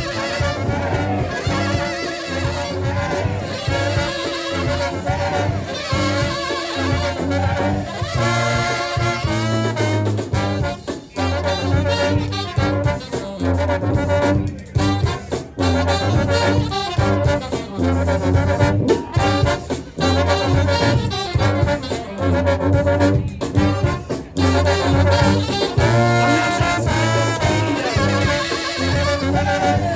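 A brass band playing live: trombones and trumpets over a steady bass line and drums.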